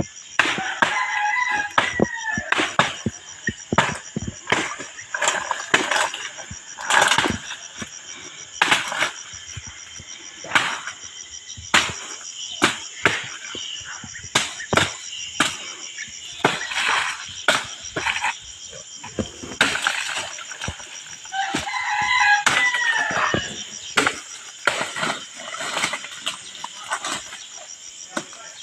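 Machete strokes chopping into the stems of a pantu palm clump to get at the palm heart, as sharp, irregular cuts one or two a second. A rooster crows twice, about a second in and again about two-thirds of the way through.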